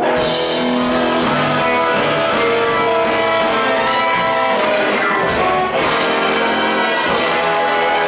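A live band with electric guitars, drums and a horn section of saxophones and trumpet playing together, the horns holding long notes over the band.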